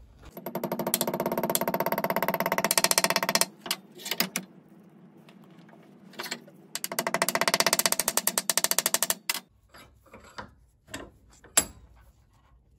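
Small hammer rapidly tapping a thin steel disc over an aluminium bar held in a steel bench vise, forming it into a curved patch. Two runs of fast, ringing taps of a few seconds each, with a few single knocks and clicks between and after.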